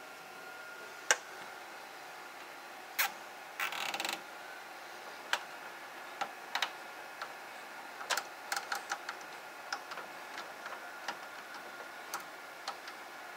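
Coax cables being handled and fastened with plastic zip ties: scattered light clicks and taps, with a brief ratcheting rasp about four seconds in as a tie is pulled tight.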